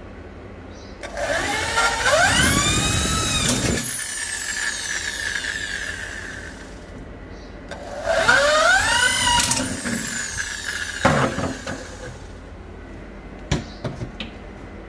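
Power drill run twice, each time its motor whine rising quickly as the trigger is squeezed, holding, then dropping as it is released. A few sharp clicks and knocks follow near the end.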